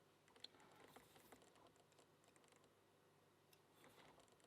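Near silence with faint, scattered small clicks and taps: small metal parts of a Kwikset Smartkey lock being handled during reassembly.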